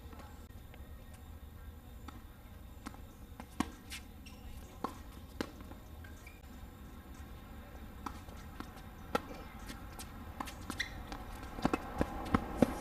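Tennis balls struck by rackets and bouncing on a hard court: scattered sharp pops through a rally, with a quicker run of them near the end, over a faint low rumble.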